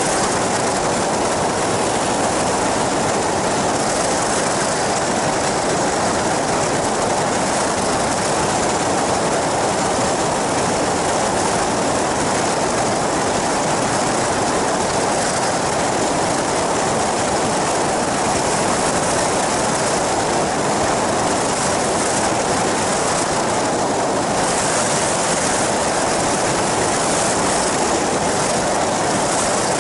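Ultralight flying boat in flight: the steady drone of its pusher engine and caged propeller mixed with rushing wind, unbroken throughout.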